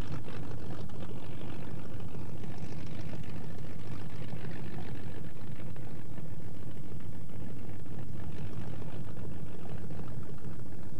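Piston engines of vintage propeller planes running steadily at low power as they taxi.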